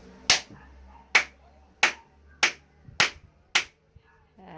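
Six short, sharp sounds in a row, a little over half a second apart.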